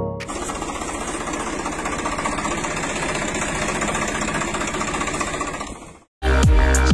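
Toy tractor's small motor running with a steady buzz as it drives, fading out near the end.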